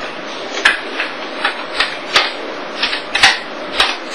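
Sharp plastic clicks from the keys or hook switch of a corded desk telephone being pressed, about nine at an uneven pace, over a steady tape hiss.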